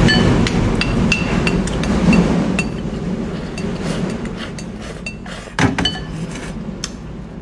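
Eating utensils clicking and scraping against a dish many times, each click with a short bright ring. The clicks come thickly for the first few seconds, then thin out, with one louder clatter about five and a half seconds in.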